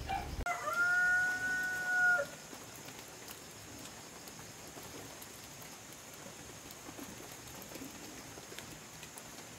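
A single drawn-out animal call, held on a steady pitch for nearly two seconds, followed by a faint steady background with a thin high whine.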